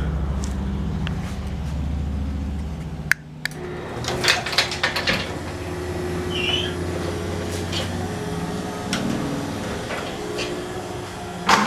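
Chamberlain HD900D garage door opener running the door down with a steady low motor hum, which stops abruptly with a click about three seconds in, followed by a few clicks and rattles as the door settles.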